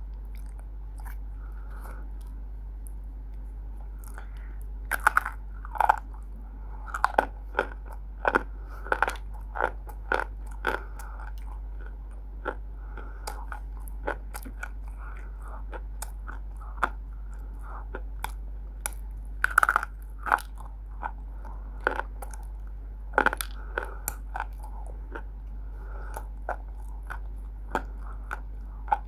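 A person biting and chewing pieces of roasted Multani mitti (fuller's earth clay), with sharp crunches at irregular intervals. The crunches bunch together from about five to eleven seconds in and again around twenty seconds in, over a steady low hum.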